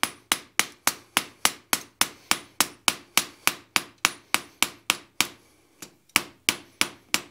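Blacksmith's hand hammer striking a red-hot steel bar on an anvil in a quick, even rhythm of about three blows a second, each blow ringing briefly. The blows are smoothing the rounded, tapered end of the bar. They pause for about a second near the end, then resume.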